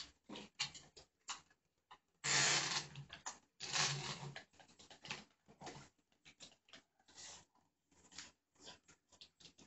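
Plastic soup sachet from a cup noodle being handled, torn open and squeezed out: a run of short crinkling rustles, with two louder rustles about two and four seconds in.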